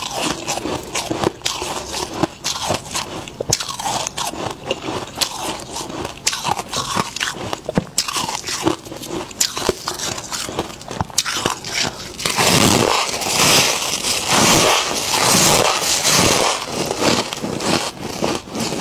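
Freezer frost being bitten and chewed: crisp, dense crunching with many sharp crackles. It grows louder and thicker for a few seconds about two-thirds of the way through.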